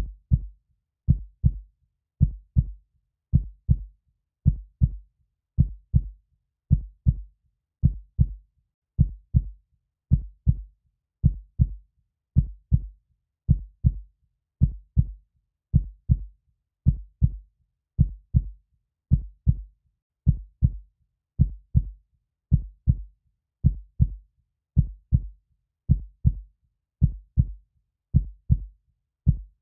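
Heartbeat sound: low double thumps (lub-dub) repeating at a steady, even pace, a little faster than one per second, with silence between beats.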